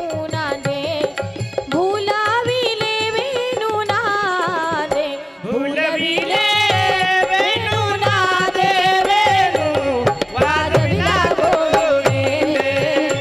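A woman singing a Marathi devotional kirtan song in long, ornamented, wavering held notes, with hand-drum accompaniment.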